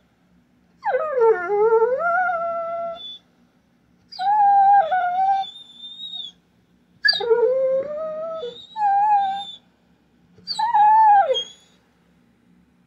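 Dog whining in five long, drawn-out cries. Each cry slides down in pitch and then holds, and the first is the longest at about two seconds. It is a dog left at home crying for its absent owner.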